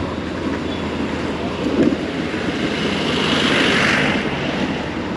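Steady vehicle and road noise with wind on the microphone. A louder hiss swells about three seconds in and fades by about four seconds.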